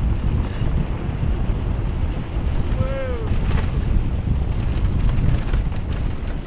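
Wind buffeting the microphone with a steady rumble. About three seconds in there is a brief call that falls in pitch, and light clicks come near the end.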